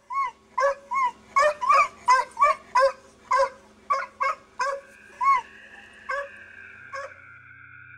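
A tethered dog yelping over and over, about two short, high, pitch-arching yelps a second, straining at its lead in distress at being left behind. The yelps thin out and stop near the end as sustained background music comes in.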